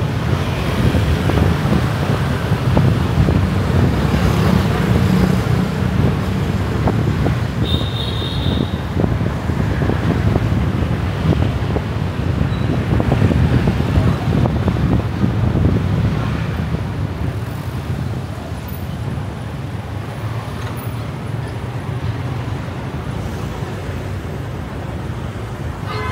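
Steady road and traffic noise of a car driving through city streets: a dense low rumble of tyres and engines, easing somewhat past the middle. A brief high beep sounds about a third of the way in.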